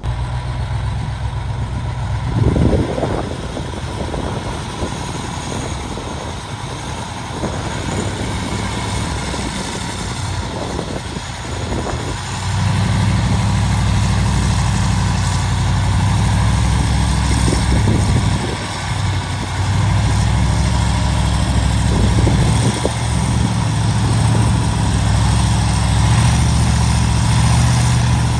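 Heavy earthmoving machine's diesel engine running steadily, with a few knocks in the first half; the engine gets louder about twelve seconds in and stays there.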